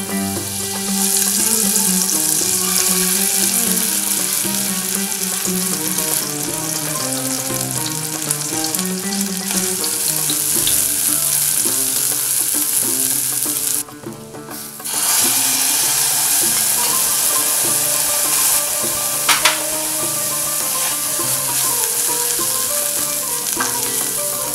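Dried barberries and sugar sizzling steadily as they fry in melted fat in a stainless steel saucepan. The sizzle drops out briefly about 14 seconds in.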